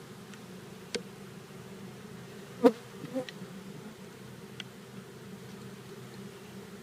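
Many honey bees, a mix of Carniolans and Italians, buzzing in a steady low hum. A small click about a second in and a sharp knock a little later, followed by a weaker one.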